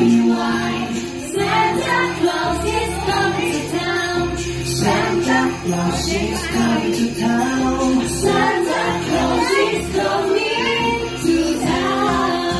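Upbeat song with a woman singing over a steady beat.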